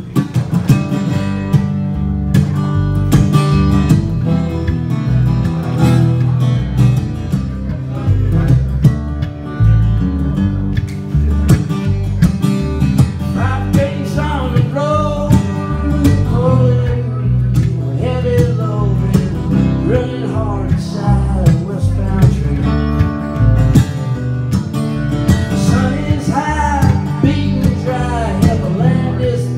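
Acoustic guitar played live, with a man singing over it from about halfway in.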